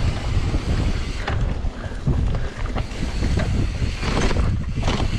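Wind buffeting the camera microphone, a heavy continuous rumble, with a few brief clicks and rattles.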